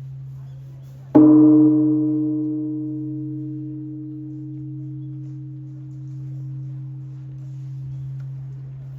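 A gong struck once about a second in, ringing out and slowly fading, over a steady low drone.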